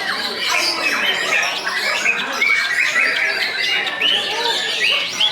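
White-rumped shamas (murai batu) singing in competition: a dense, unbroken stream of fast whistles, trills and chattering notes from several birds at once.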